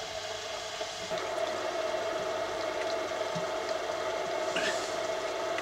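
Steady background hum and hiss with one constant mid-pitched tone, and no distinct events.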